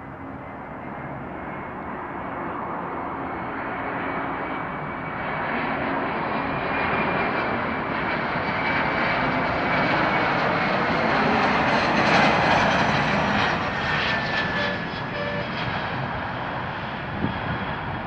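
Jet engines of an Air India narrow-body airliner on final approach to land, growing steadily louder as it nears, loudest about two-thirds of the way through, then easing off as it passes toward the runway. A thin high whine rides over the roar and drops slightly in pitch after the loudest point.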